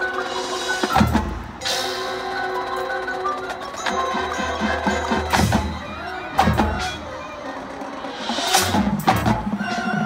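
High school marching band and front-ensemble pit playing a field show: held wind and brass chords over mallet percussion, broken by several cymbal crashes and deep drum hits.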